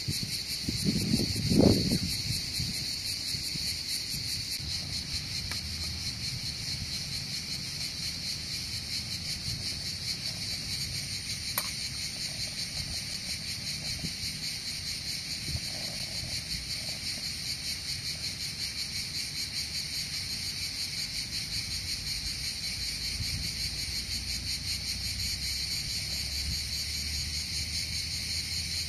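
Steady insect chorus, a dense high chirring of rapid pulses. A short low rumble, louder than the insects, comes about one to two seconds in.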